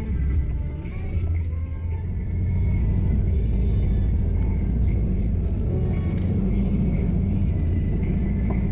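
Daihatsu Taft diesel 4x4 running off-road, a steady low engine and drivetrain rumble that grows slightly louder and evener a couple of seconds in.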